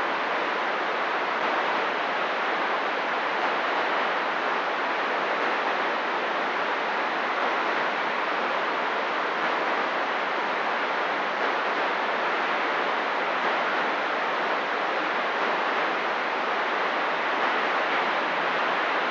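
Steady hiss of CB radio static from a receiver with the squelch open, with no one transmitting on the channel.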